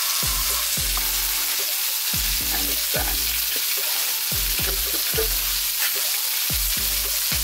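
Background music: a deep bass note slides downward about once a second over a steady crackling hiss. A few light knife taps on a plastic cutting board sound through it.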